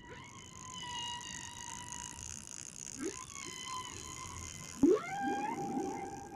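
A baby's high-pitched, drawn-out squeals, held and then gliding upward, that sound like whale calls. There is a sharp knock just before the last rising squeal.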